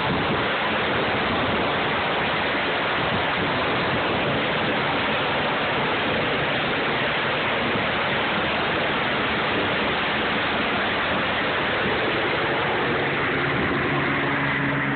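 Medical helicopter taking off and climbing overhead: a loud, steady rush of rotor downwash and engine noise blasting the phone's microphone. Near the end, steady hum tones of the rotors and turbine come through the rush as it climbs away.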